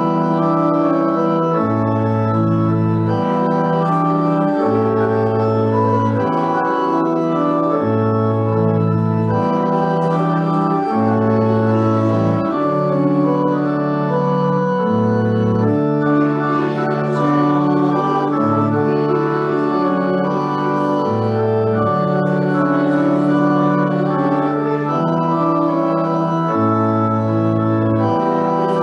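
Organ playing a slow piece in held chords over a bass line that moves from note to note; each note sounds steadily for as long as it is held, without fading.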